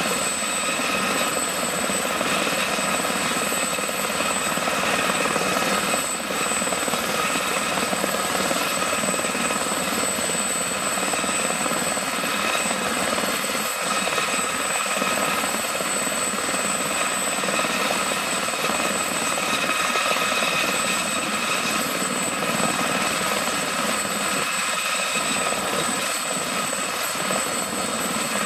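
Aerospatiale SA341G Gazelle helicopter with its Astazou IIIA turboshaft running and rotors turning while it sits on the ground. It makes a steady, even whine with several high tones over a rushing rotor and engine noise.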